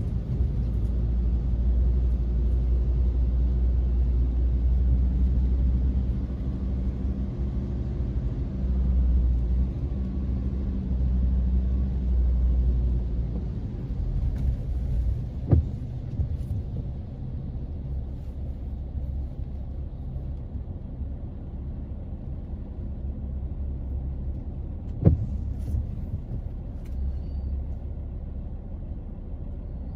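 Car cabin rumble from the engine and tyres on a wet road while driving, heavier for the first dozen seconds, then easing as the car slows into queued traffic. Two sharp knocks stand out, about halfway and near the end.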